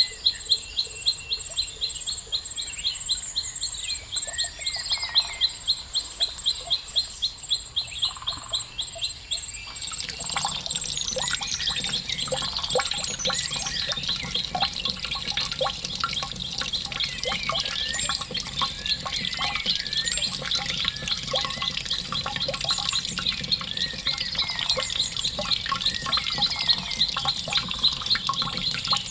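Small birds chirping, with a fast run of repeated high notes. About ten seconds in, a steady sound of running water joins, with busy chirping over it.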